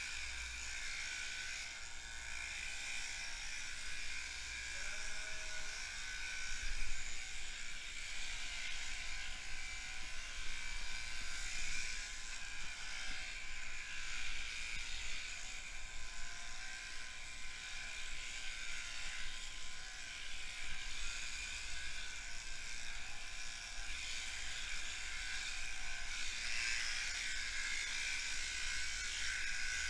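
Electric sheep-shearing handpiece running with a steady buzzing whir as its comb and cutter work through a lamb's fleece.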